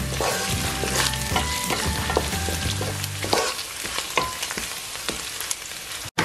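Diced pancetta sizzling as it fries in a pan, stirred and scraped with a wooden spatula in short strokes.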